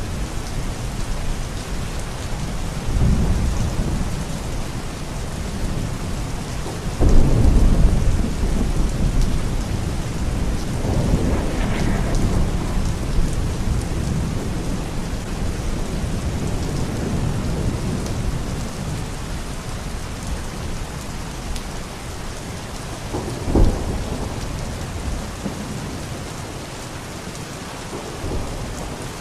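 Steady heavy rain with rolling thunder. Several low rumbles swell and fade, the loudest about a quarter of the way through, and a shorter, sharper thunderclap comes about three-quarters of the way through.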